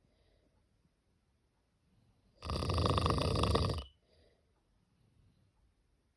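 A cat snoring: one loud snore about a second and a half long around the middle, with faint breathing just before and after it.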